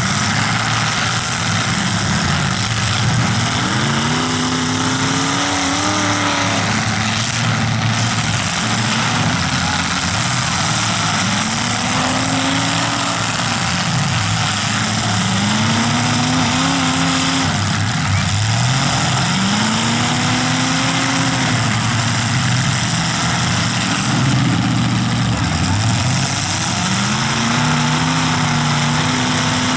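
Demolition derby cars' engines running hard, revving again and again, the pitch climbing and then holding every few seconds as the cars drive into one another.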